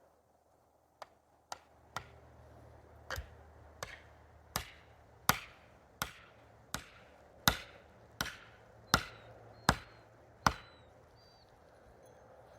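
Axe chopping into a standing tree trunk: about fourteen strokes, roughly one every 0.7 seconds, the blows growing louder after the first few.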